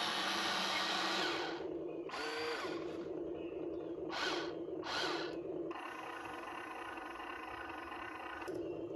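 Small electric motors whining in start-stop runs, typical of a radio-controlled model excavator being worked. There is one long run at the start, two short bursts mid-way, and another steady run near the end.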